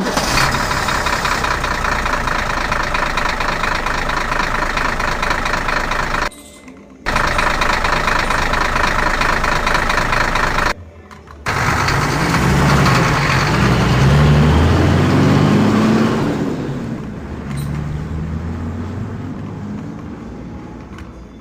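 Tractor engine sound effect: an engine running steadily, cutting out abruptly twice for under a second each time. After that it revs up and down and slowly fades.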